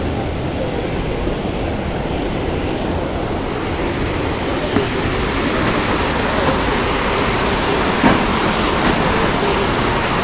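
Steady rush of falling water from a waterfall, getting a little brighter and hissier about halfway through, with a brief knock near the end.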